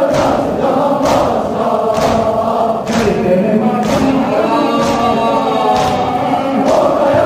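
Large crowd of men chanting a Muharram noha (mourning lament) in unison, with chest-beating (matam) thuds falling together about once a second.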